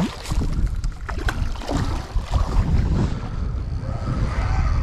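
Wind rumbling on the microphone, with scattered knocks and handling noise and the wash of moving water.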